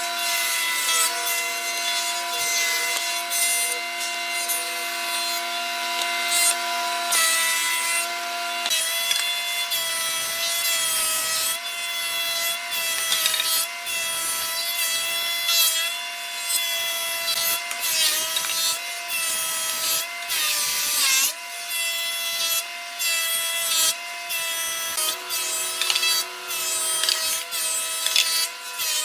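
Thickness planer running with a steady whine while its cutter head shaves rough boards fed through one after another, a rasping cutting noise over the motor. The whine dips in pitch once, about two-thirds of the way through.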